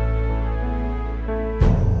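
Background film music: sustained chords over a deep held bass note, broken about one and a half seconds in by a sudden heavy hit with a quick falling sweep that then dies away.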